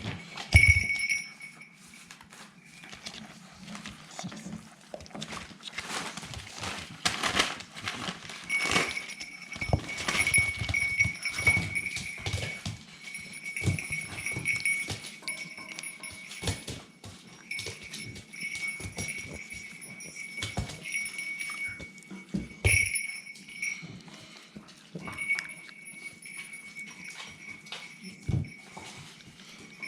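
Staffordshire bull terrier puppies scuffling about, with many small knocks and taps.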